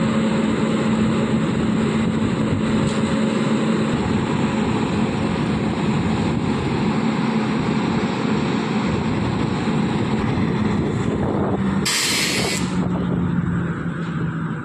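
WAP-7 electric locomotive standing with its cooling blowers running: a loud, steady whooshing hum. About twelve seconds in, a short, sharp burst of compressed air hisses out for under a second.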